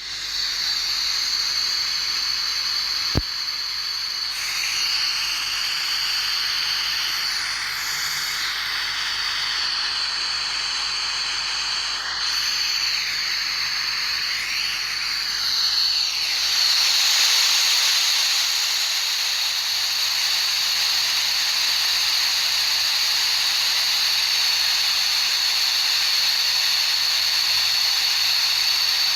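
Tinnitus-masking noise: a steady, high-pitched hiss centred on one high pitch, with faint sweeping tones drifting through it in the first half and a single click about three seconds in. About halfway through it grows a little louder and smoother.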